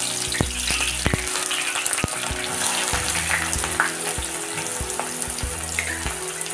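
Sliced onions deep-frying in hot oil in a kadhai: a loud, steady sizzle with scattered pops, the onions freshly added and frying to go crisp.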